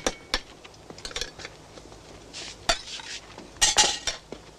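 Cups and a spoon clinking: scattered sharp clinks, with a louder clatter of several clinks about three and a half seconds in.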